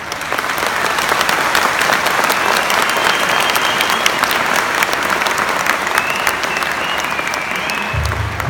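Large audience applauding in a hall, the clapping breaking out all at once and holding steady, with a couple of faint high whistles in the middle. Low music comes in near the end.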